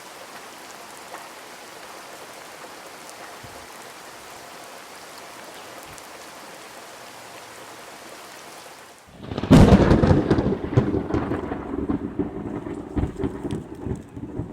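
Steady rain hiss, then a loud, rolling rumble of thunder starting about nine seconds in and fading near the end.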